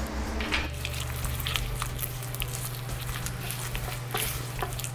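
Bare hand kneading soft butter, sugar and egg yolks in a ceramic bowl: irregular wet squishing strokes of creamed batter.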